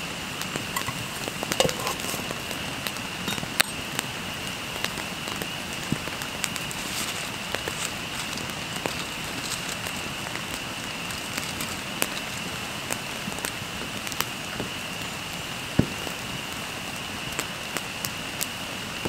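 Campfire crackling, with irregular sharp pops from the burning wood, over a steady high-pitched background drone.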